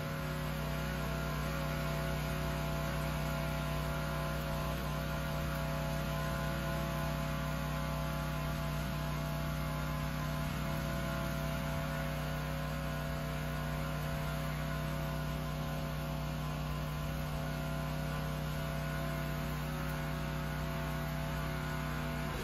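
Gas-engine pressure washer running steadily at one constant pitch, driving a 20-inch water-recovery surface cleaner over concrete, with the hiss of its water spray underneath.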